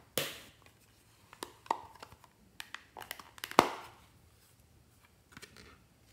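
A plastic makeup palette handled: scattered clicks and crinkles of plastic, then a sharp snap about three and a half seconds in as its clear plastic lid pops open.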